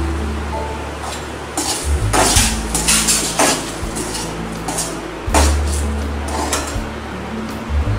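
Metal spoon scraping and clinking against an aluminium kadai as boiled eggs are rolled in thick chilli masala, in irregular strokes with a cluster in the middle.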